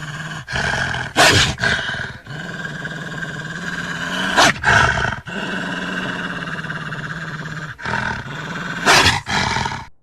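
Wolf growling, a low continuous rumbling growl broken three times by sudden louder outbursts: about a second in, near the middle and near the end.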